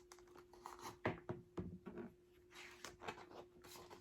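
Pages of a picture book being handled and turned: paper rustling with a few soft knocks, over a faint steady hum.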